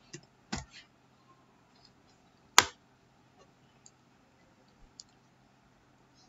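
A few scattered clicks of a computer keyboard and mouse, with one much louder click about two and a half seconds in, over a faint steady hum.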